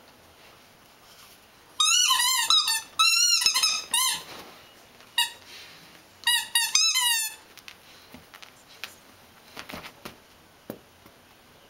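Squeaky toy ball squeaking as a puppy bites down on it: rapid wavering squeaks in three bursts, about two seconds in, near five seconds and again around six to seven seconds. Faint taps follow near the end.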